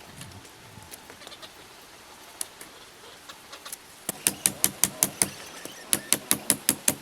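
A fast, even series of sharp taps or knocks, about five a second, starting a little past halfway, pausing briefly and then going on; only faint scattered ticks before it.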